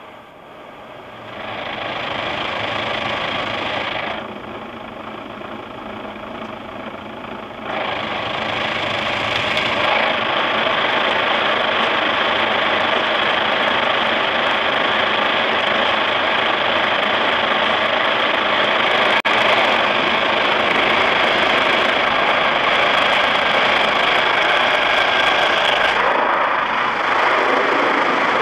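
Automatic car wash's rotating brushes and water scrubbing over the windshield, heard from inside the car as a loud, steady rushing noise. It grows louder about a second in, eases a few seconds later, and rises again at about eight seconds.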